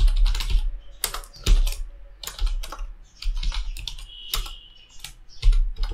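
Typing on a computer keyboard: irregular runs of keystroke clicks.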